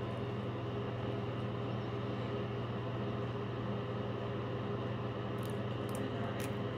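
A steady low hum at an even level, with a few faint clicks near the end.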